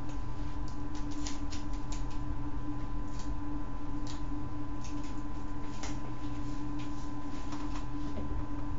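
Paper and sellotape being handled: irregular small crackles and clicks as the tape is worked along the paper, over a steady low hum.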